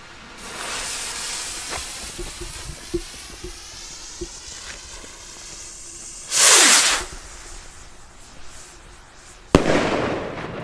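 Funke star rocket's fuse hissing and crackling for several seconds after being lit, then the rocket launching with a loud whoosh about six seconds in. Near the end a sharp bang as it bursts into stars.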